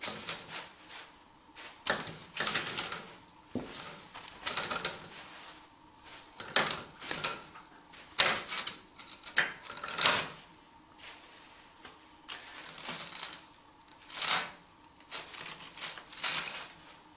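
Toilet paper rustling and crinkling in irregular bursts as a kitten paws at it and pulls it down, unwinding the roll on its holder.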